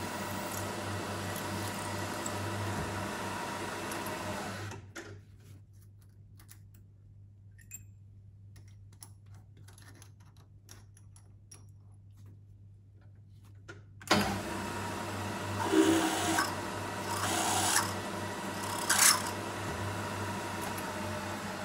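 Milling machine running with a steady motor hum as it cuts the faces of small metal bearing caps. It stops about five seconds in, leaving quiet broken by light clicks as parts are handled. It starts up again around fourteen seconds in, with a few louder bursts near the end.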